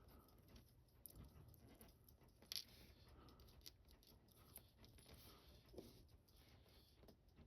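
Near silence with a few faint small clicks, the loudest about two and a half seconds in: small parts of an opened watch mainspring barrel being handled on the bench.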